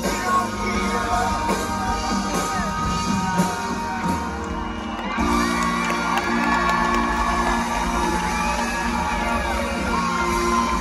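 Live rock band playing, with sung vocals over held chords and a crowd whooping and shouting along. The band drops back briefly about four seconds in, then comes back in full.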